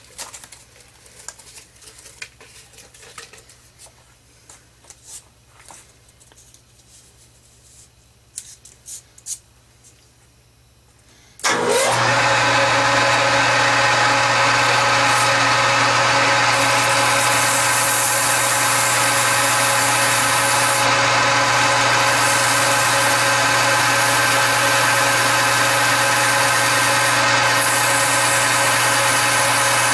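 A few light handling clicks, then about eleven seconds in a metal lathe switches on and runs steadily with a gear whine. Over it a high hiss comes and goes as emery cloth is pressed against the spinning workpiece to polish it.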